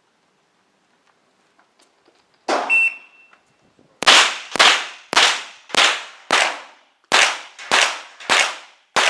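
Rimfire rifle firing: one sharp report with a brief high ring about two and a half seconds in, then after a short pause a rapid string of about nine shots, roughly two a second.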